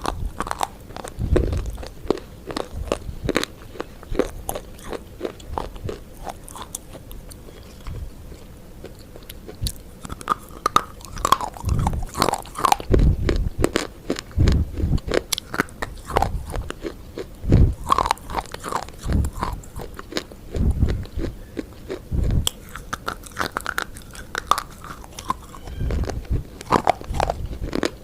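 Close-up crunchy chewing and biting: a dense run of sharp crackles with low thumps, sparser for a few seconds early on, then thicker again.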